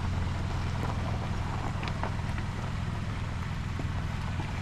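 An engine idling steadily with a low, even hum, with a few faint clicks of handled gear over it.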